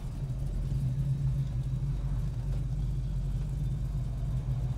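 1967 Chevrolet Chevelle SS's 502 big-block V8 running steadily at low, even revs while the car cruises, a deep, unchanging drone.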